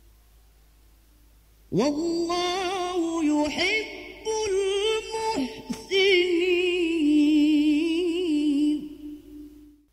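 Male qari reciting the Quran in melodic tilawah style. After a near-silent pause, a long, ornamented phrase with wavering held notes begins about two seconds in and breaks off just before the end.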